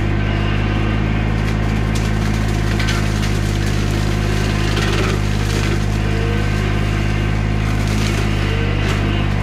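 Bobcat E35 mini excavator's diesel engine running steadily at working speed, powering a Baumalight hydraulic mower head on its arm, with a few faint cracks scattered through it.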